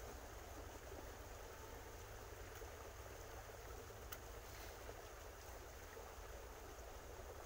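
Faint steady outdoor background noise with a low rumble, and one small sharp click about four seconds in.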